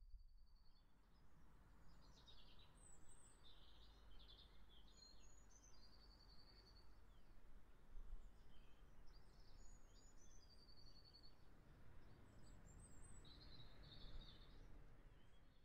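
Faint birdsong: several small birds chirping, with a few short trills, over a low steady background rumble.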